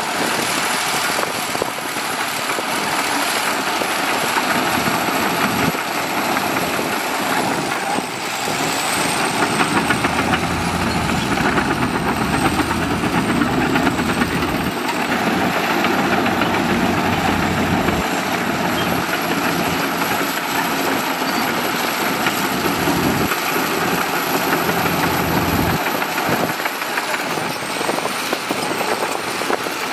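Heavy diesel earthmoving machinery running steadily at work, as with a bulldozer pushing dirt or a dump truck, with a thin high whine that wavers in pitch a few times.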